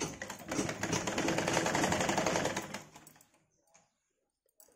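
Sewing machine stitching at speed: a rapid, even clatter of needle strokes for about three seconds, then slowing and stopping.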